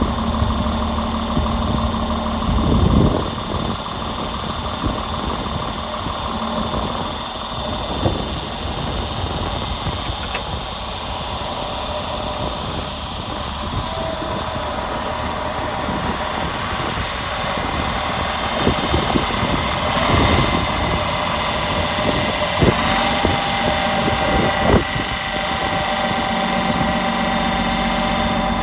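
Tub grinder's engine running through start-up, with steady machine noise. Partway through a whine rises and then holds steady as the machine comes up to speed.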